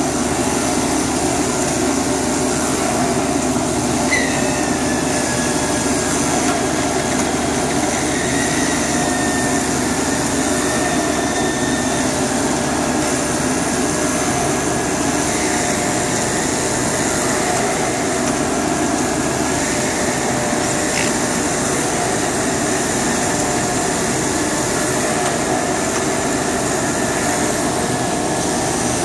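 Gerber automatic fabric cutter running: a steady, loud mechanical rush, mostly the vacuum table's blower holding down the plastic-covered fabric lay, with faint whines sliding in pitch from the cutting head and carriage as they travel over it.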